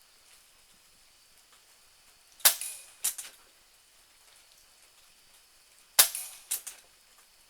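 A Benjamin Marauder .22 pre-charged pneumatic air pistol firing pellets: two pairs of sharp cracks, the two cracks in each pair about half a second apart. The first crack of each pair has a short ringing tail.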